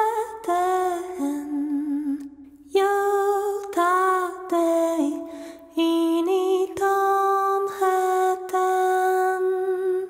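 Slow, sparse music: a melody of long held notes with slight vibrato, phrase by phrase, without drums. It sounds like a wordless female voice.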